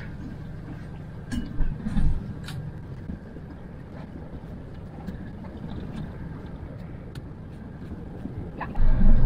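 A boat engine running at low speed, heard as a steady low rumble inside a small pilothouse cabin, with a couple of knocks in the first two seconds. Near the end a much louder, uneven low rumble sets in.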